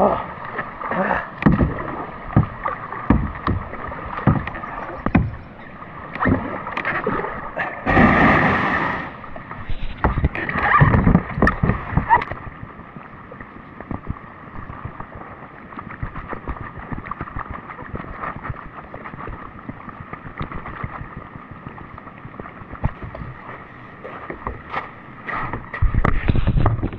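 Kayak paddle strokes and water splashing as a plastic sit-on-top kayak is paddled in and run aground on a gravel beach, with a longer, louder rush of water and hull about eight seconds in; after that only a quieter steady hiss.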